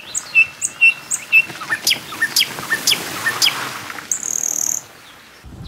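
Wild birds calling: a few short high chirps, then a run of about four quick descending whistles roughly half a second apart, and a brief high buzzy note near the end, over a faint steady hiss.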